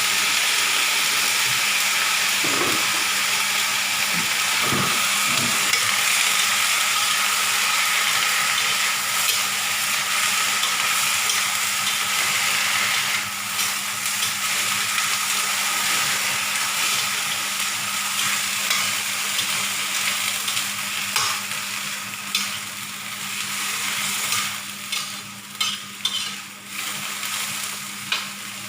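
Papaya flowers and sardines sizzling in a frying pan, with a steady hiss that eases off after about halfway. A spatula stirs the food, and near the end it gives a few sharp knocks against the pan.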